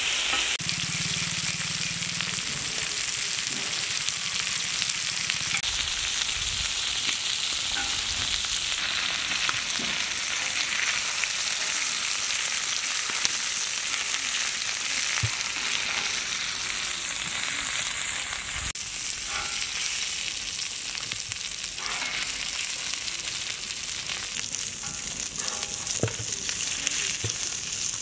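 Chicken pieces sizzling in oil on a large flat metal griddle: a steady frying hiss. A metal spatula scrapes and turns the pieces now and then, adding brief clicks.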